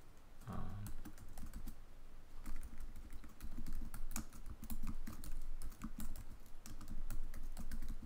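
Typing on a computer keyboard: a quick, irregular run of key clicks with short pauses as a command is typed in.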